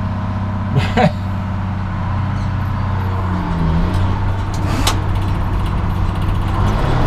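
Engine running steadily at a low, even speed, with a sharp click a little before five seconds in.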